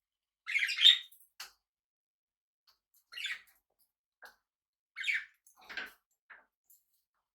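Pet parrots calling: three short, harsh squawks, the first and loudest about a second in, the others about 3 and 5 seconds in, with a few faint ticks between them.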